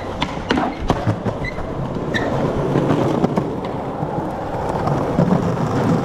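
Skateboard wheels rolling over rough concrete, with a few sharp clacks of board on ground in the first couple of seconds. Then a steady rolling rumble that grows louder toward the end.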